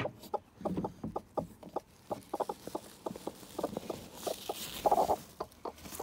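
Broody hen on her nest clucking in short repeated notes, three or four a second, with a brief rustle about four seconds in.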